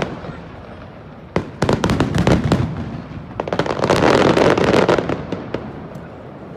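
Aerial fireworks display: a quick run of sharp bangs from about a second and a half in, then a dense, loud stretch of overlapping bursts and crackle that dies away near the end.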